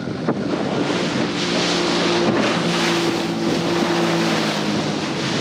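Panga's outboard motor running with a steady hum that fades out near the end, over wind buffeting the microphone and the wash of the sea.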